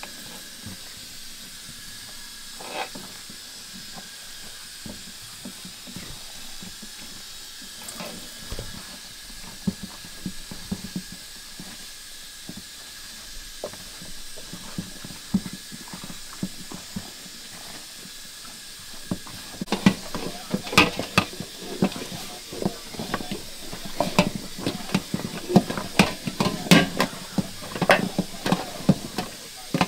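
Festival dough being mixed in a stainless steel bowl, first stirred through dry flour with a wooden spoon over a steady hiss. About two-thirds of the way in it turns into a quick run of sharp taps and slaps as the dough is worked by hand against the metal bowl.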